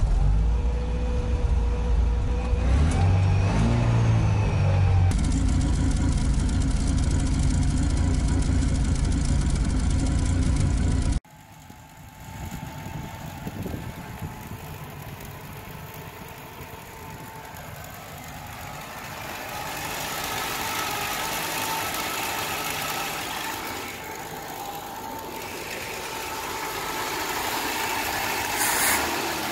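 IZh-2125 Kombi's four-cylinder petrol engine running just after start-up, heard loud from inside the cabin and revved briefly a few seconds in. After a sudden cut it goes on running more quietly, heard from outside by the open engine bay.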